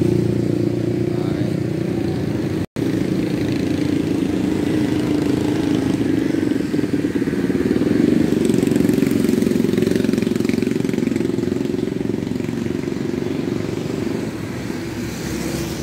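Steady low motor-vehicle engine drone, broken by a split-second dropout about three seconds in.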